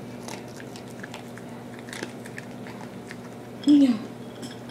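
Dog chewing dry kibble: scattered crisp crunching clicks over a faint steady hum. Near the end comes a brief falling vocal sound, the loudest thing heard.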